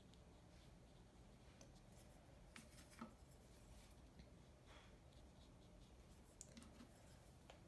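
Near silence with a fine paintbrush lightly stroking and dabbing on watercolour paper, a few faint taps.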